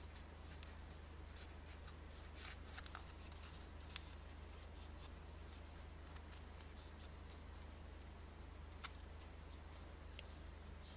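Faint crisp crackles and ticks of a paper banknote being folded and creased by hand, busiest in the first few seconds, with one sharp tick near the end.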